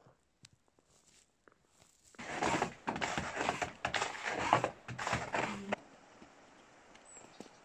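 Footsteps crunching in deep snow, a dense run of crackling crunches that starts about two seconds in and stops about four seconds later.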